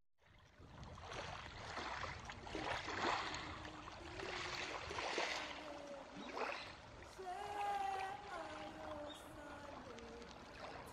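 Small waves washing and splashing onto a pebble shore in surges. From about seven seconds in, faint distant voices come in over the water sound.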